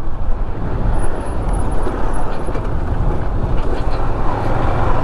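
Motorcycle riding along the road: a steady rumble of engine and road noise mixed with wind on the microphone.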